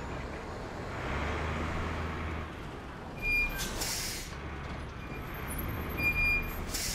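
Animated tractor-trailer truck reversing: a low engine hum runs throughout. A short high beep about three seconds in is followed by an air-brake hiss, and a second beep and hiss come near the end.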